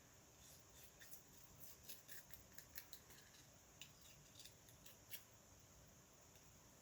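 Faint, irregular snips of scissors cutting paper.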